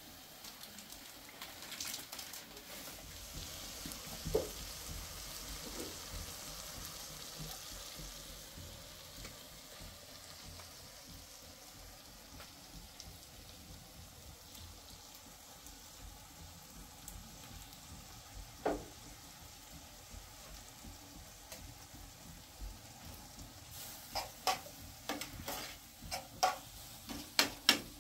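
Food sizzling in a frying pan on a gas stove, the sizzle swelling for a few seconds early on, with a metal spoon now and then knocking against the pan as it is stirred. Near the end the spoon scrapes and taps the pan in a quick run of clicks.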